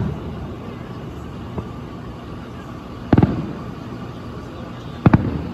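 Aerial firework shells bursting at a distance: two booms, about three and five seconds in, each trailing off in a rumbling echo, with a faint pop in between.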